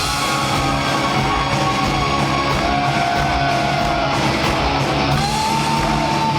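Progressive metal band playing live, loud and steady: distorted guitars, bass and drums in a regular beat, with long held notes that bend slowly in pitch over the top.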